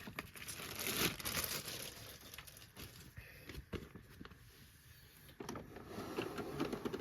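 A new paper vacuum cleaner bag being handled and unfolded, crinkling and rustling, with a few light clicks between the louder rustles.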